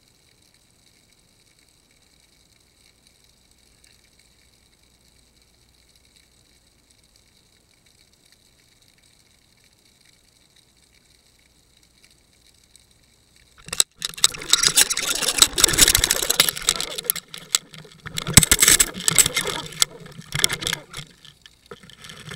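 Underwater fishing camera: a faint steady hiss, then about 14 seconds in a loud, jerky rushing and scraping as the camera housing is pulled along the sandy seabed. The noise lasts about eight seconds and stops shortly before the end.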